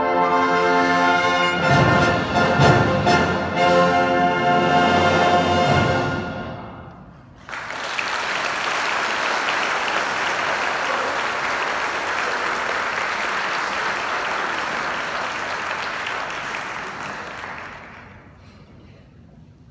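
Symphony orchestra with piano soloist playing the closing chords of a piece: sustained loud chords, then several hard-struck chords that ring out and fade. About seven seconds in, audience applause breaks out suddenly and carries on steadily before dying away near the end.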